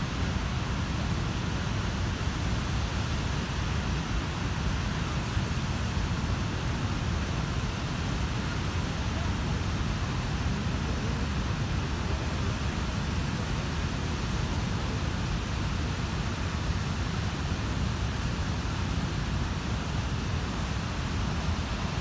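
Steady rush of the Rhine Falls waterfall and the fast, churning river below it: a constant, unbroken noise, heaviest in the low end.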